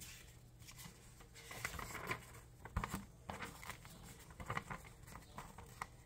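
A folded paper lyrics sheet being unfolded and handled: soft paper rustling with scattered small crackles.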